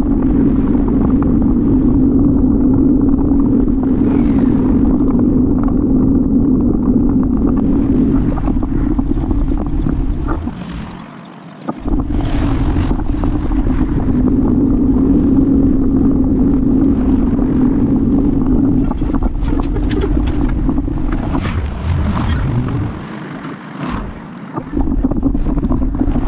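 Steady droning wind and road noise on a bicycle-mounted camera during a ride. It drops away briefly twice, once about midway and again near the end.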